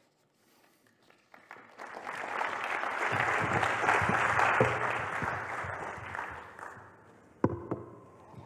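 Audience applause that starts about two seconds in, swells, and fades away by about seven seconds. A single sharp thump follows shortly after.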